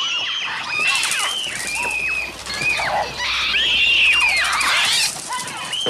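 Synthetic bird cries from a Mixtur-Trautonium: a dense flock of shrill, overlapping screeches and squawks. Each call arches up and then falls off in pitch.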